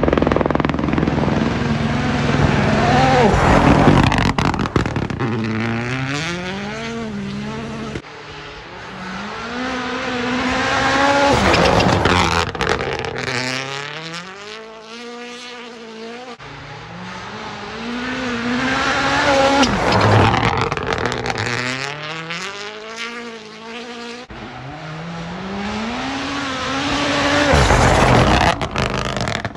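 WRC Rally1 cars' turbocharged four-cylinder hybrid engines passing at speed, four cars in turn, each engine rising in pitch again and again as it accelerates through the gears and loudest as it goes by.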